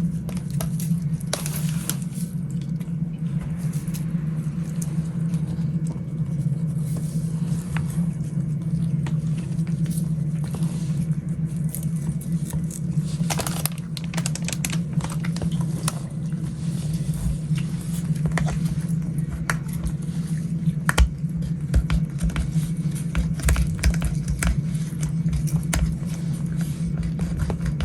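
Cats eating: irregular small clicks and smacks of chewing and licking food, over a steady low hum.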